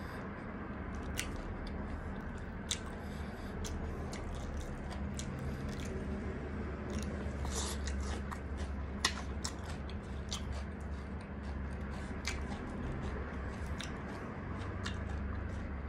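Close-miked chewing of breadcrumb-coated deep-fried chicken, with many sharp crackles and mouth clicks over a steady low hum.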